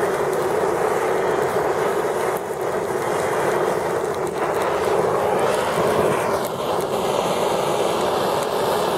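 Handheld gas torch burning with a steady rushing hiss, its flame on a burning polymer pistol magazine.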